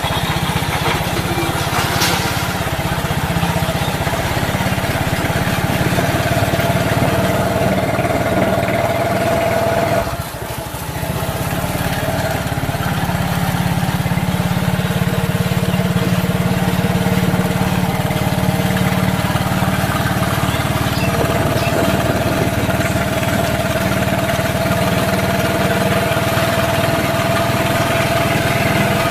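Motorcycle engine of a sidecar taxi running steadily while riding along. The engine note dips briefly about ten seconds in, then picks up again.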